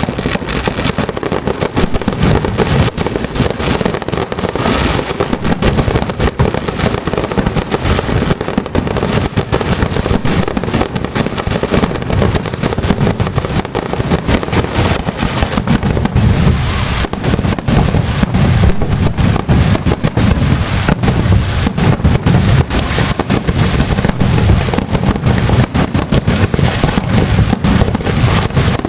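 Fireworks display: a loud, dense, continuous barrage of shell bursts and crackling with no pause.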